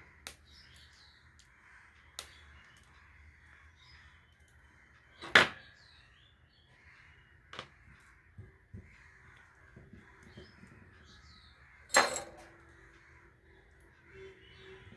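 A handful of sharp clicks and snaps from cutting and handling short lengths of hookup wire with hand tools, two of them much louder than the rest, about five seconds in and near twelve seconds in.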